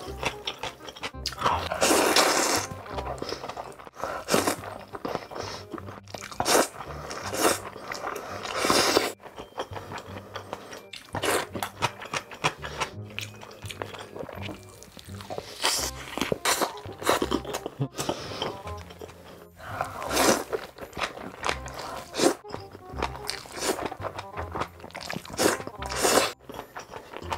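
Close-miked eating sounds, with big bites, crunching and chewing, repeated many times over background music with a bass line.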